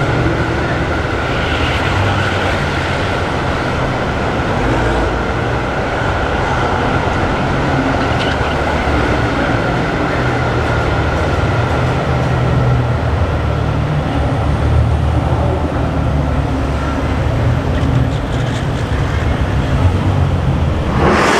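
Idling car engines giving a loud, steady low rumble that wavers slightly in pitch, with a constant faint whine above it.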